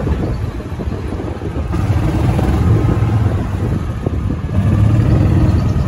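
Wind buffeting the microphone in a loud, uneven low rumble that swells twice, around two and five seconds in.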